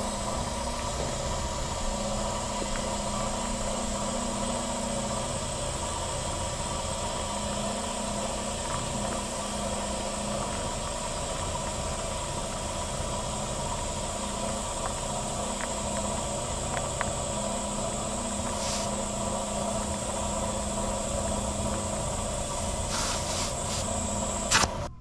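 Air compressor running steadily while a flat car tyre is inflated through an air hose and chuck.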